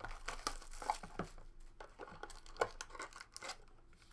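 Foil trading-card pack being torn open and crinkled by hand: a string of short, irregular crinkling rustles.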